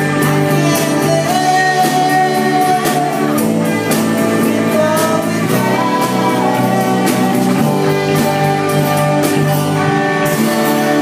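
Live rock band playing: acoustic and electric guitars over a drum kit with cymbal hits. A cymbal wash swells in near the end.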